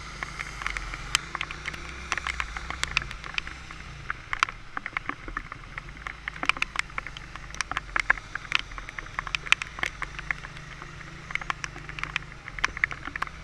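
Raindrops tapping irregularly on the camera, a rapid scatter of sharp ticks, over the low steady running of a motorbike engine.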